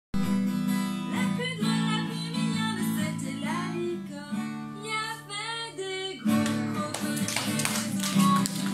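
Acoustic guitar strummed in chords, with singing over it.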